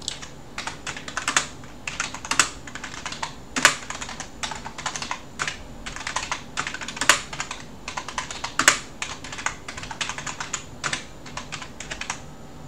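Typing on a computer keyboard: a quick, irregular run of keystrokes, with a few louder strokes here and there.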